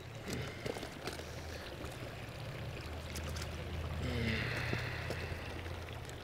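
Shallow stream water running steadily, with a few light clicks and splashes as a small trout is handled in a landing net held in the water.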